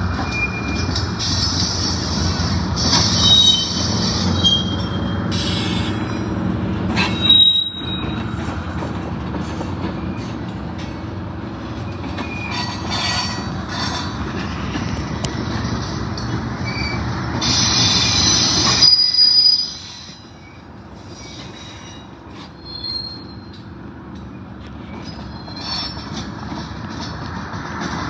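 Double-stack container freight train rolling slowly past, its steady rumble broken by repeated high-pitched wheel squeals. The rumble drops away sharply about nineteen seconds in.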